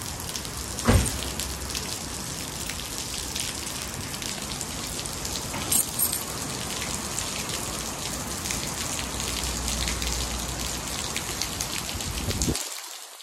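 Steady rain falling on a car, heard as a dense patter of small drop ticks, with a short knock about a second in and another near six seconds. The sound cuts off suddenly near the end.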